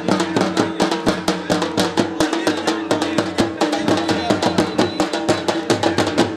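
Punjabi dhol drum beaten with sticks in a fast, steady rhythm of sharp strokes.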